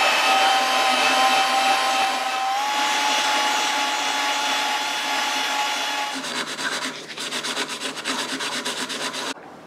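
Cordless drill running steadily, spinning a small abrasive bob inside a clamped metal tube, its motor whine over a grinding rub. About six seconds in the whine stops and a fast pulsing rub carries on for about three seconds, then cuts off near the end.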